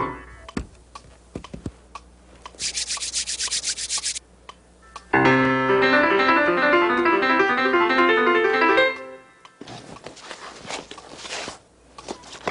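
Piano played in a fast, loud flurry of notes for about four seconds in the middle. Before it comes a short rapid scratching sound, and after it some rustling.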